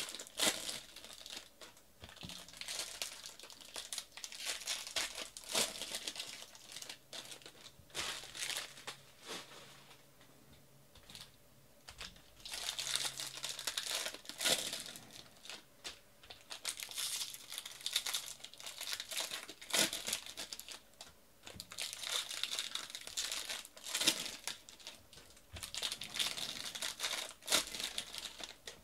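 Foil baseball-card pack wrappers crinkling and tearing as they are ripped open by hand, with the cards inside shuffled, in irregular bursts with a quieter lull about ten seconds in.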